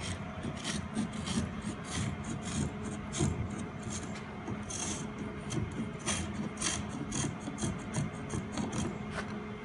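Round spokeshave cutting wood along a concave curve, its blade taking thin shavings in quick short rasping strokes, about three a second.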